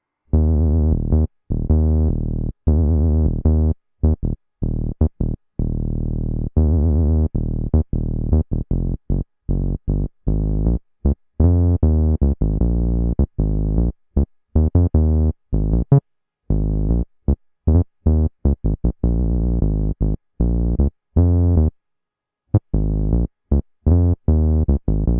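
Sequential Prophet 6 analog synthesizer playing a bass patch, with no external effects: a riff of short, punchy low notes that start and stop abruptly, a few held longer, with a brief pause about 22 seconds in.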